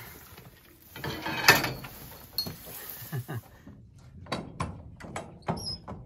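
Metal self-locking headlock stanchion clanking as a cow pulls her head free after the lock is released, loudest about a second and a half in. Then footsteps about two a second on dirt, with a couple of bird chirps near the end.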